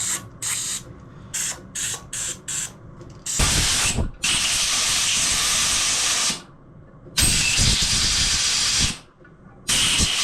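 Aerosol can of brake cleaner spraying, cleaning engine studs and their threads. It hisses in about six short spurts, then in four longer blasts of a second or two each.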